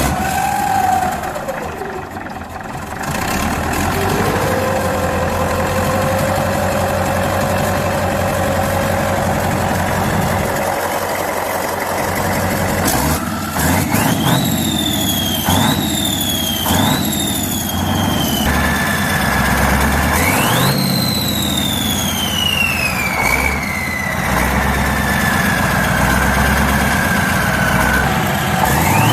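An old engine starting and running, with a whine that climbs and falls in pitch several times, then falls slowly over several seconds.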